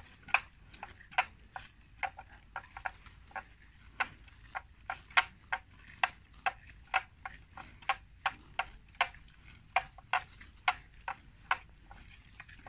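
Water buffalo grazing close by: sharp, crisp snaps of grass being torn off and cropped, at an irregular pace of about two a second.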